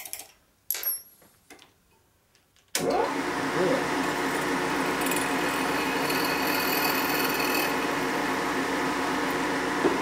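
Milling machine spindle switched on about three seconds in and running steadily at about 1,000 RPM while a quarter-inch drill bit drills a dowel-pin hole into an aluminium cam cover. A couple of light clicks come before it starts.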